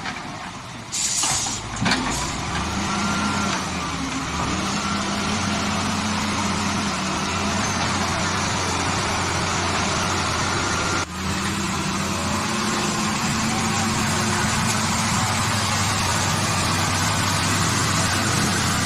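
Bulldozer's diesel engine running steadily under work, with a low drone throughout. Two short, loud, hissing bursts come about one and two seconds in.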